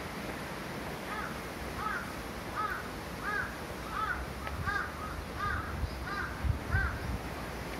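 A crow cawing repeatedly, about nine caws a little under a second apart, over steady background noise, with two low thumps near the end.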